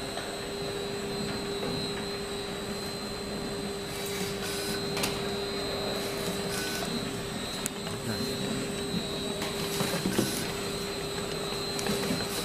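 Two-side self-adhesive labeling machine running: a steady motor hum with one constant tone, joined from about four seconds in by scattered short clicks and clatters.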